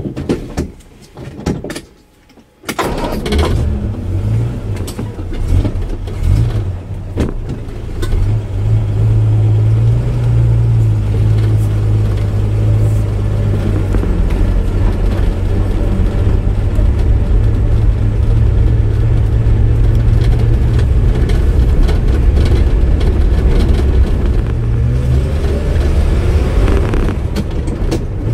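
Vauxhall PC Cresta's 3.3-litre straight-six engine starting. It catches suddenly about three seconds in after a few clicks and knocks, is revved unevenly a few times, then runs steadily while the car is driven.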